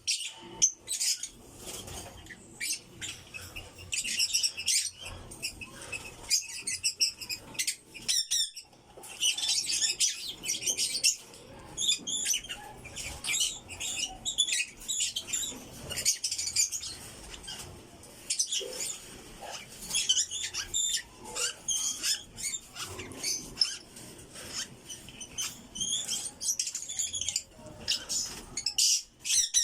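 African lovebirds chirping in rapid, high-pitched bursts of calls, over and over, with scattered clicks and rustling.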